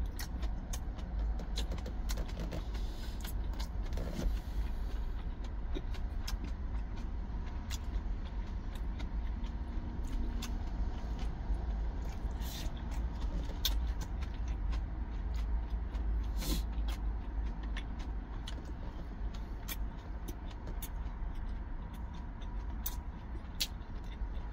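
Steady low rumble of an idling truck engine heard inside the cab, with frequent short clicks and taps of wooden chopsticks on a plastic lunchbox tray and quiet chewing.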